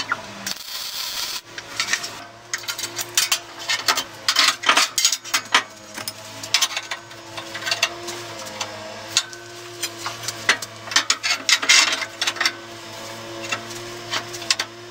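A short MIG welding tack crackles about a second in. After it, steel tube and clamps clink, knock and scrape in irregular short clicks as they are handled and set on a steel fixture table.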